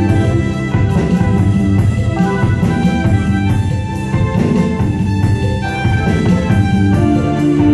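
A band playing at a sound check: a drum kit keeps a steady beat under held, pitched instrument notes.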